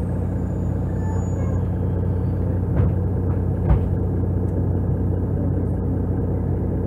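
Mercedes-Benz O530 Citaro city bus's diesel engine idling with a steady low hum, heard from inside the passenger cabin. Two dull thumps come about a second apart near the middle.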